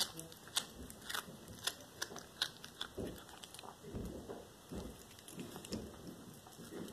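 Black tabby cat chewing a whole raw small rat, with irregular crunching bites and sharp clicks of its teeth.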